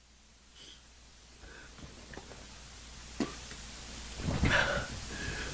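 Faint handling and rustling noises, with a single sharp knock about three seconds in and a louder rustle a second later.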